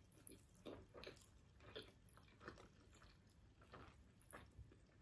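Faint chewing of a soft steamed meat bun (baozi): soft wet mouth clicks, two or three a second.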